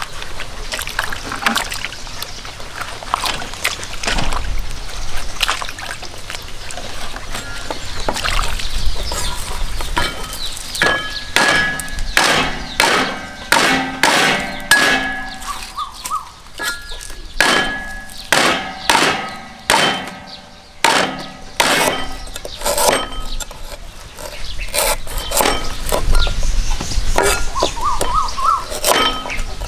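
Kitchen work: a run of sharp knocks and clinks, about one to two a second, through the middle stretch, some with a short metallic ring, over a steady low hiss.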